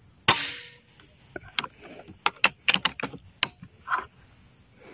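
PCP air rifle (a full-CNC Predator with a regulated air tube) firing one shot, a sharp crack about a third of a second in. A quick run of sharp mechanical clicks follows, the action being cycled to chamber the next pellet.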